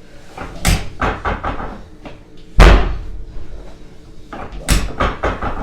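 Sudden thuds and knocks from a chiropractic adjustment on the treatment table. The loudest is a heavy thud about two and a half seconds in, with smaller knocks before it and another cluster near the end.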